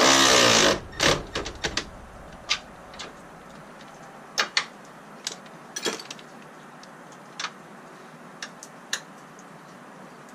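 Ratchet wrench tightening a 10 mm bolt: a fast, loud run of ratchet clicks for about a second. Single clicks and taps of the tool follow every second or so.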